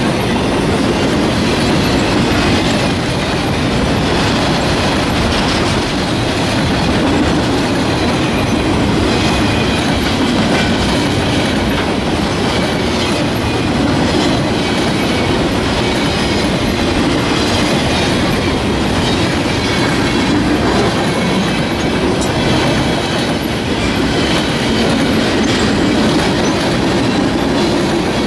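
Loaded flatcars of a freight train rolling past, a steady rumble of steel wheels on the rails.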